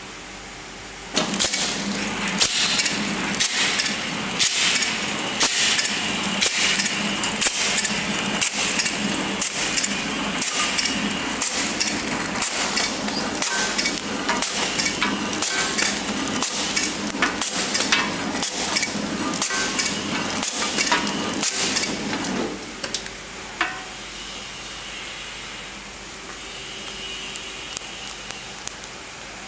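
Horizontal flow-wrap packing machine starting about a second in and running with a steady clatter, a sharp stroke about once a second that fits its set speed of 55 packs a minute, and a thin high whine. It stops suddenly about two-thirds of the way through.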